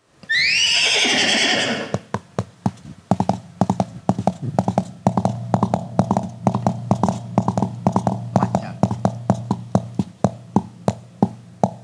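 A horse whinny, then foley hoofbeats made by hand with props, clip-clopping in a galloping rhythm of quick sharp knocks that thins out near the end.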